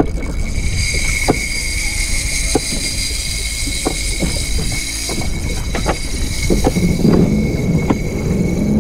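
Spinning reel cranked in, a thin high whine with scattered clicks and knocks, over steady wind and water noise on the microphone. About seven seconds in, the Sea-Doo's engine comes on and runs at a low idle.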